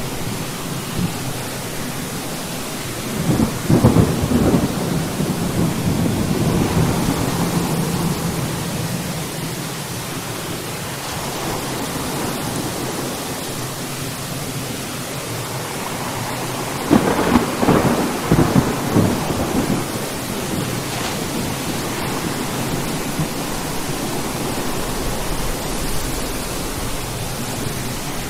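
Thunderstorm: steady rain hissing, with two rolls of thunder, the first about three seconds in and the second, crackling, a little past halfway.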